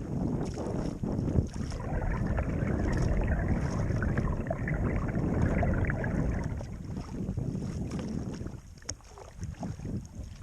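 Wind buffeting the microphone over water splashing and lapping around a kayak on open water. The rush eases about eight seconds in.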